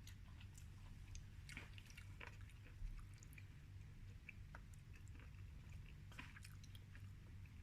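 Faint, close-up chewing of soy-sauce grilled king oyster mushroom: soft, irregular wet clicks and small crunches, with a slightly louder click about three seconds in, over a low steady hum.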